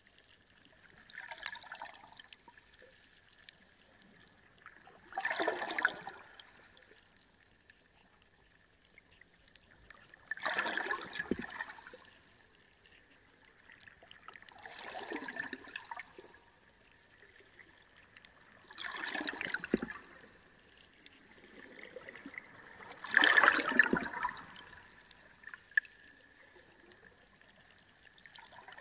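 Water in a reef aquarium rushing and trickling in swells about every four to five seconds, six in all, the loudest near the end, over a faint steady high whine.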